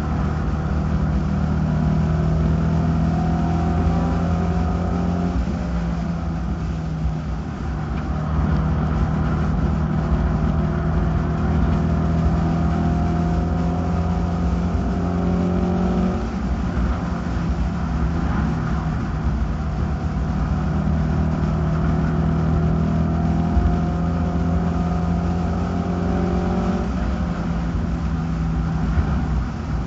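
Race car engine running hard at racing speed, heard close from an onboard camera, its note rising and falling as the car goes between the turns and the straight, with steady road and wind noise underneath.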